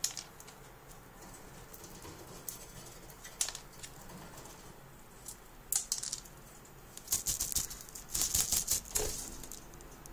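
Siberian chipmunk clambering on a wire cage: scattered sharp metallic clicks of claws on the bars, then a quick flurry of rattling clicks about seven seconds in that lasts about two seconds.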